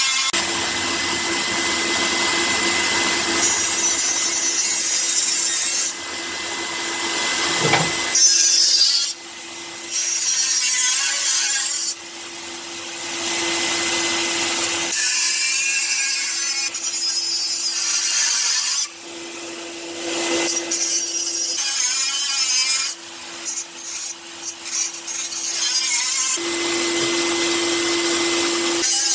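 Power tool working metal in runs of several seconds, each starting and stopping abruptly, with a steady hum under the noise and short choppy gaps near the end.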